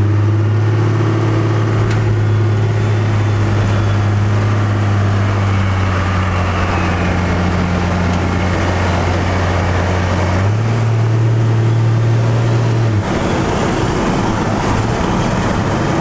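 First-generation Cummins 5.9 L 12-valve inline-six turbodiesel with a compound turbo kit, heard from inside the cab under way: a steady low drone. It steps up in pitch about ten seconds in and drops away to a rougher, lower sound around thirteen seconds.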